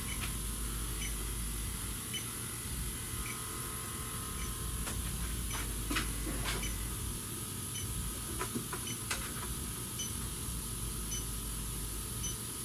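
Electronic refrigerant leak detector ticking slowly with short high beeps about once a second, its idle rate when it is not sensing gas, over a steady faint whine. A few sharp handling clicks come in the middle.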